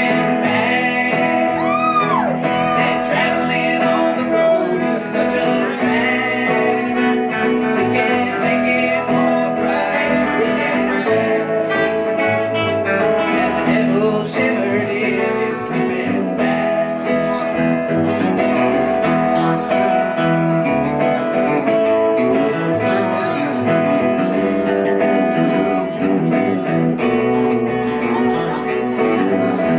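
Live band playing: electric guitar, upright bass and acoustic guitar, with a man singing lead into a microphone. The music runs steadily at an even loudness.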